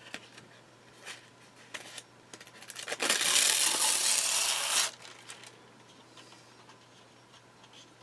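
Thin protective paper being peeled off a model kit's decal sheet: a few light rustles, then a loud crackling rustle of paper lasting about two seconds, a few seconds in.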